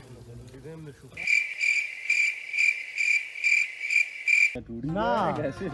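Crickets chirping: a steady high trill that pulses about twice a second, starting abruptly about a second in and cutting off about a second before the end, with all other sound muted under it, as in a dubbed-in sound effect.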